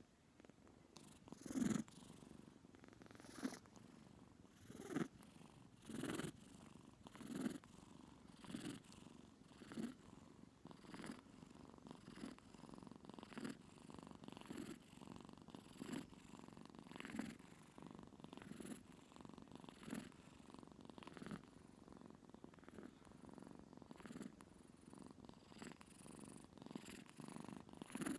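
Kitten purring softly close up, the purr swelling in a slow, even rhythm about once every second and a half as it breathes.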